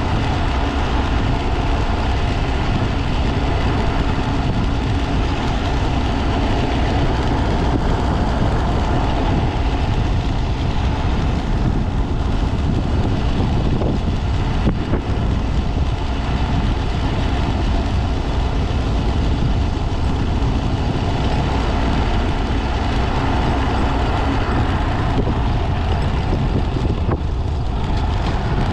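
Honda Z125 Monkey's single-cylinder engine running steadily while riding, under heavy wind noise on the helmet-mounted microphone.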